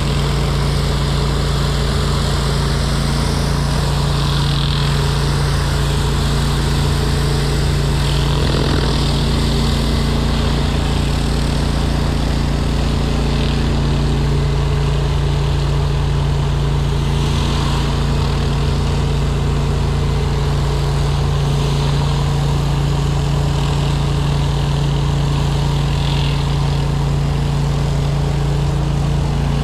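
Commercial hot-water pressure washer rig running steadily: a constant engine hum with a steady hiss of water spray from a surface cleaner working concrete.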